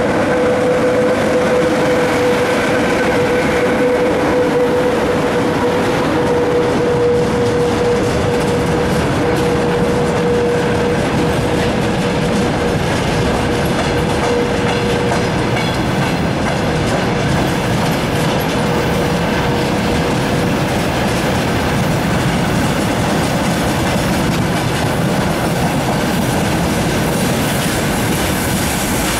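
A VL80S two-section AC electric locomotive passes close by, then a long freight train of covered hopper wagons rolls past, its wheels running steadily on the rails. A steady whine is heard over the rolling noise at first and fades out by about halfway through.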